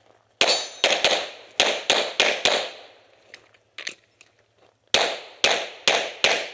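Semi-automatic pistol firing rapid strings of shots in a practical-shooting stage: about seven fast shots, a lull of about two seconds with one quieter shot, then about five more fast shots near the end.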